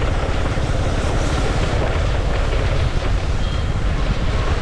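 Steady wind buffeting on the microphone over a low rumble.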